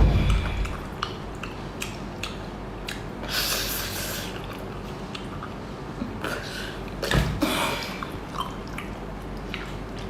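Wet chewing and squishing of a large octopus being eaten close to the microphone, with scattered clicks. There is a thump at the start and another about seven seconds in, and a longer slurping hiss around the middle.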